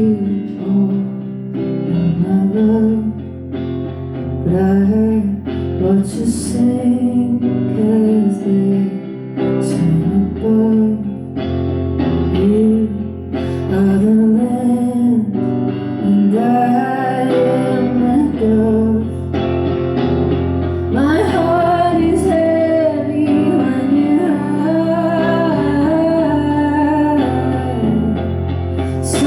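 Live solo performance of a song: a woman singing over her own guitar accompaniment.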